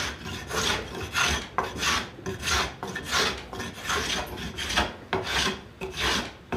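Small hand plane taking quick test passes along a cambará wood rafter held in a bench vise, a rhythmic rasping stroke about twice a second. The blade is shaving smoothly rather than tearing, the sign that it is cutting with the grain.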